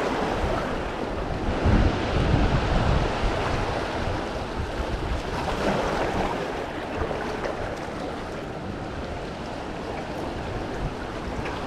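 Surf washing on a beach, a steady rushing noise, with wind rumbling on the microphone.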